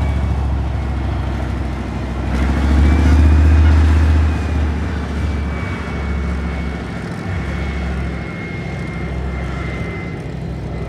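Gepard tank's 10-cylinder MTU engine of about 37 litres running under load. It swells and rises in pitch about two seconds in, then eases back about four seconds in. A thin, steady high whine runs above the engine.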